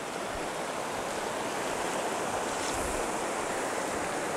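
Fast, shallow river rushing over a rocky bed and small riffles, a steady even rush of water, with a couple of soft low bumps.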